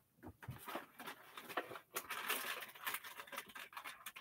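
Soft scratchy rustling: a quick, irregular patter of small rubbing and handling noises, busiest in the second half.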